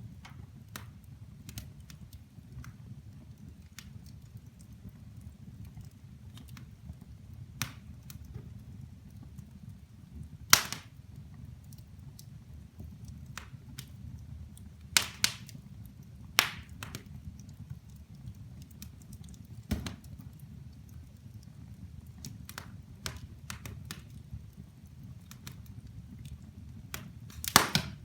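Firewood burning in a fireplace, crackling with irregular sharp pops and snaps over a low steady rumble; a few pops stand out loud, with a quick run of them near the end.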